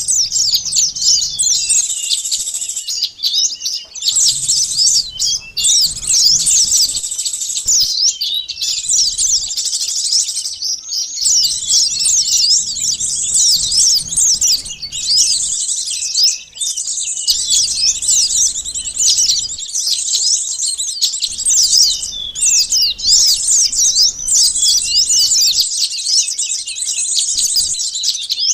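Sunbirds (burung madu) calling as a bird-trapping lure recording: a dense, continuous chatter of rapid high-pitched chirps and twittering sweeps, many calls overlapping, with a few brief pauses.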